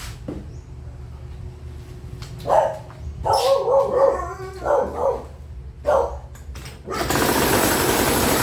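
Hangkai 3.5 hp outboard motor catching about seven seconds in and then running steadily and loud after repeated start attempts. Before it catches, several short bark-like calls sound over a low rumble.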